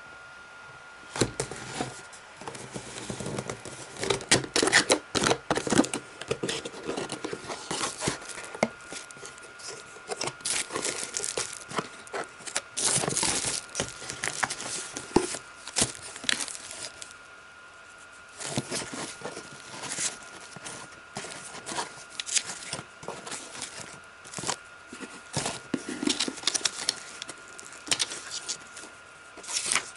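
Unpacking a camera lens box by hand: cardboard flaps and inserts scraping and rustling, and the plastic bubble wrap around the lens crinkling, in irregular crackles with a couple of short lulls. A faint steady high tone runs underneath.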